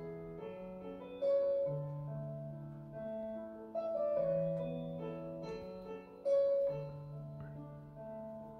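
Slow, gentle piano music playing from a television, with sustained notes and chords and a fresh chord struck every few seconds.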